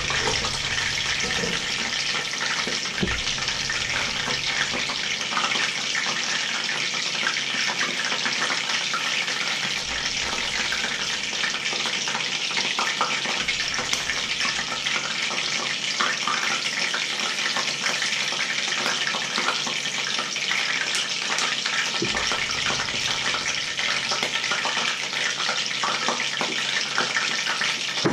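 Steady hiss with fine crackling from pans heating on the stove.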